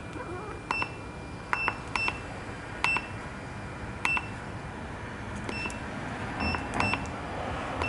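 Short electronic key beeps from a diagnostic scan tool, about nine of them at an uneven pace, as its buttons are pressed to move through the menus and check the transmission for trouble codes.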